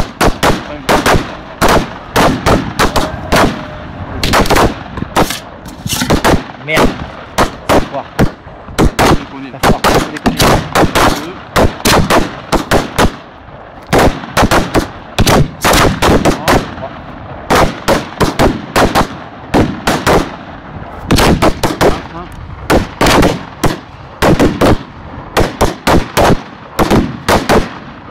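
Fireworks firing at close range: rapid strings of sharp bangs, several a second, broken by a few brief pauses.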